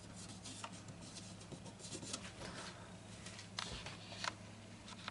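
Faint handling noise of tape being pressed and rubbed down over an acoustic guitar's binding: soft rustles and light clicks, two slightly louder clicks late on, over a steady low hum.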